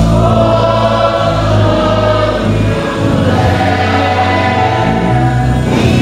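A church congregation singing a hymn together as a choir, many voices over steady low accompanying notes.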